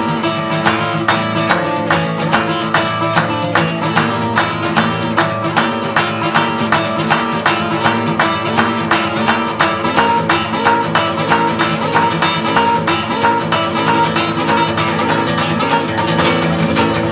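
Instrumental music: acoustic guitar strummed in a steady, even rhythm, without singing.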